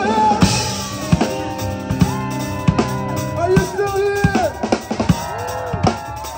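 Live band playing an instrumental passage: a drum kit keeps a steady beat of bass drum and snare hits, under a pitched lead line of held notes that slide up and down.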